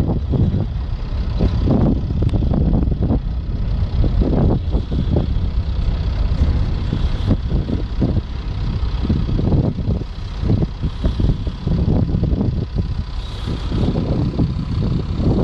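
Nuclear icebreaker pushing through sea ice at close range: a continuous low rumble broken by irregular cracking and grinding as the hull crushes the ice.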